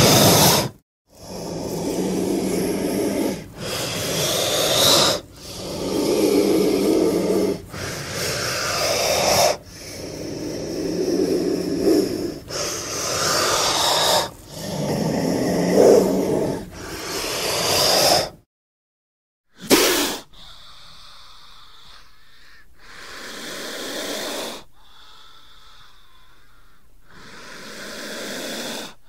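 A cobra hissing in a series of long, breathy hisses about two seconds each, about nine loud ones in a row. After a short pause a few fainter, softer hisses follow.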